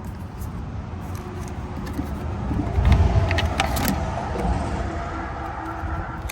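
A car passing on a nearby road: a low tyre-and-engine rumble that swells to its loudest about three seconds in and then fades away. A few light clicks and jingles, like keys or handled gear, come near the loudest point.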